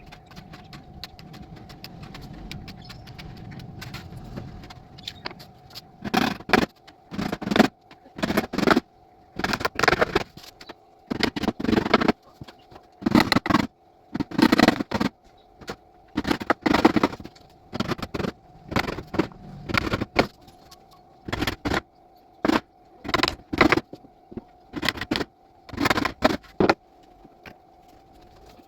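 Repeated short scraping strokes on wood, irregular and about one a second, starting a few seconds in, over a steady faint hum.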